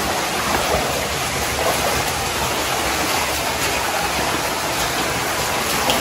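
Water from a shallow stream rushing over rocks: a steady, even wash of noise.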